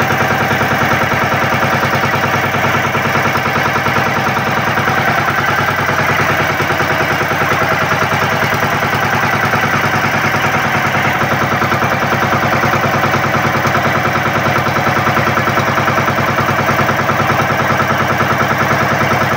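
Outrigger boat's inboard engine running steadily under way, a loud, even stream of rapid firing pulses.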